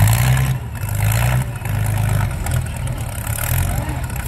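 Doodlebug pulling tractor's engine running with a deep, steady rumble whose loudness rises and falls a little.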